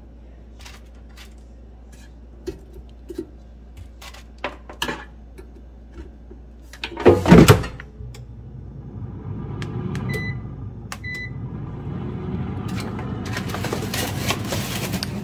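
Chicken pieces set into an air fryer's basket with light clicks, then the basket pushed shut with a loud clunk about seven seconds in. Two short beeps follow from the air fryer's touch panel, and its fan starts running with a steady rushing noise.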